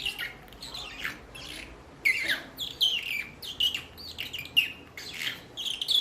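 A man imitating morning birdsong with his mouth: a run of quick, high chirps, each sliding downward in pitch, with a short pause about one and a half seconds in.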